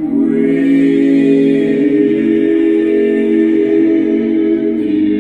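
Barbershop quartet of four men singing a cappella: a close-harmony chord comes in sharply and is held, shifting in the lower voices near the end.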